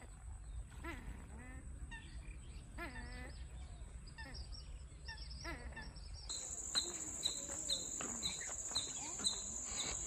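Several wild birds calling across a marsh, with scattered overlapping calls. About six seconds in, a high steady insect drone begins, along with a short high chirp repeated about twice a second.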